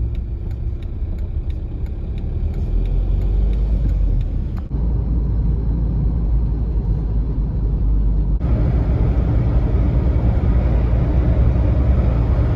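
Steady low road and engine rumble inside the cabin of a moving Skoda Octavia 1.9 TDI. Faint regular ticking sounds in the first few seconds, and the sound changes abruptly twice.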